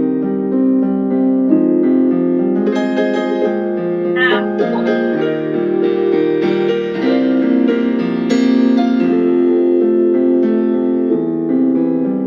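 Solo piano music playing a steady, measured accompaniment for a ballet barre exercise.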